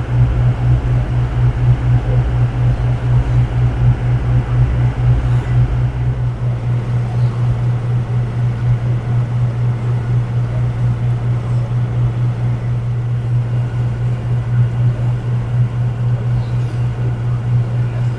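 A cruising boat's engine running steadily underway, heard on board as a loud, low pulsing drone. The deepest part of the rumble eases about six seconds in.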